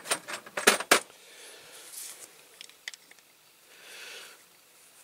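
A quick run of sharp metal clicks and taps in the first second, then soft rustling, as pliers and small diecast metal parts are handled.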